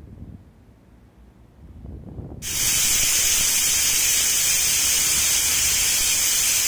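Stainless-steel pressure cooker whistling: a low rumble builds for about two seconds, then the weight valve lifts and steam starts a loud, steady hiss. The whistle means the cooker has reached full pressure, one of the whistles counted off to cook the peas.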